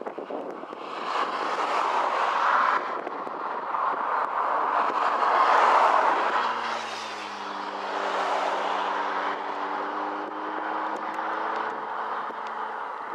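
Distant diesel freight locomotive, a Class 66, working across a viaduct: its engine note, a few steady tones dipping slightly in pitch, comes in about halfway and holds for several seconds. Gusty wind noise on the microphone swells twice over the first half.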